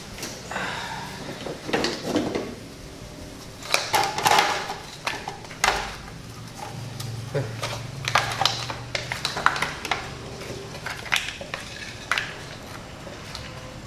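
Cooked freshwater mussels in their shells clattering as they are scraped and tipped out of a metal wok with a wooden spatula onto a serving tray. Irregular clinks and knocks of shell against the metal wok.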